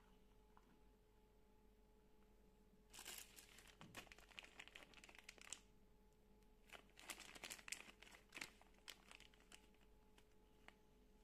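Clear plastic packaging crinkling as it is handled, in two spells of faint crackling: one about three seconds in and another about seven seconds in.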